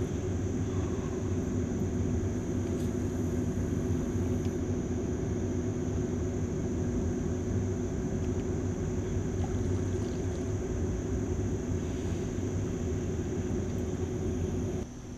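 A steady low rumble with a thin, high steady tone over it; the rumble drops off suddenly near the end.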